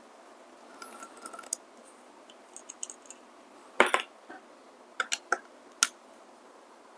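A magnetic screwdriver working small screws out of a DF64 coffee grinder's body: light scraping and clicks as a screw is turned out, a louder clack about halfway through as a piece is set down, then a few quick metal ticks as the screwdriver tip is fitted into the next screw.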